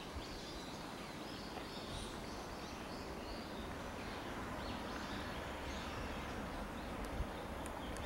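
Steady outdoor background noise with faint small-bird chirps over the first half or so.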